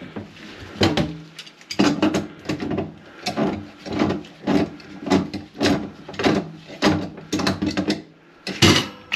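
A stiff faucet aerator being screwed onto a kitchen faucet spout: a long run of short scraping, grating strokes, about two to three a second, with a pause and one last louder stroke near the end.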